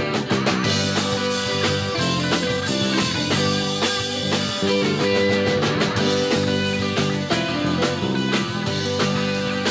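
Live rock band playing: two electric guitars, electric bass, keyboard and drum kit, with a steady beat.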